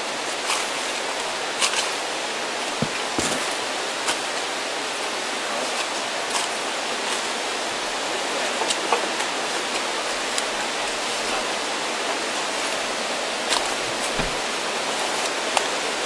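Waterfall running: a steady, even rush of falling water, with a few brief ticks or splashes now and then.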